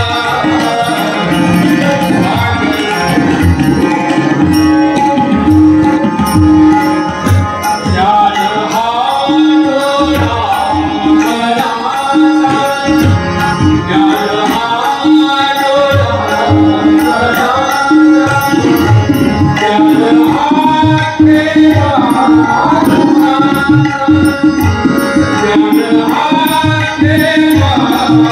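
A Marathi welcome song (swagat geet) performed live: a voice singing the melody over harmonium, with tabla keeping a steady rhythmic beat.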